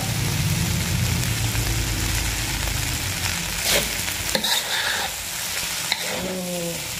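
Fried rice sizzling in a wok as a metal spatula stirs and turns it, with a few sharp scrapes and clacks of the spatula against the wok about halfway through and near the end.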